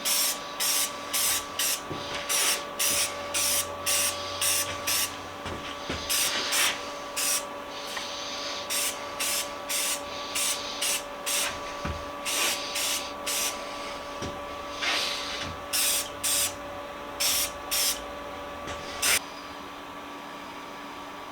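Spray paint going on in many short hissing bursts, one or two a second, stopping about nineteen seconds in, over a faint steady hum.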